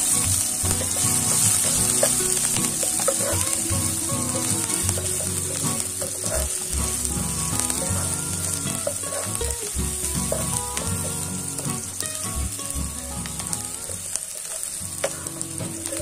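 Diced onion sizzling in hot oil in a nonstick frying pan: a steady hiss, loudest at first and slowly easing as the onion softens. A wooden spatula makes scattered light scrapes and taps on the pan as the onion is stirred.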